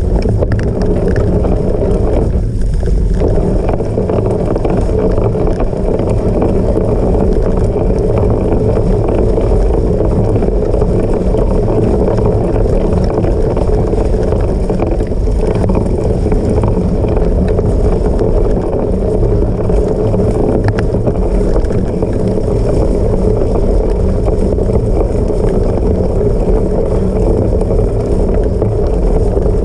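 Cyclocross bike being raced off-road: a steady rush of wind on the microphone mixed with the bike's rolling noise, with no let-up.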